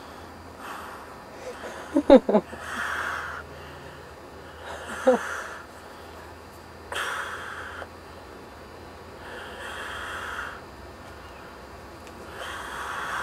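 A man breathing slowly and heavily right at the microphone, one long breath every two to three seconds, with a short voiced snort about two seconds in and another about five seconds in.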